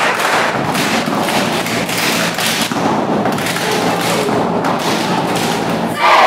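Cheer dance squad stomping and clapping in a fast, steady rhythm on the gym floor mats, echoing in the large hall, over a haze of crowd noise.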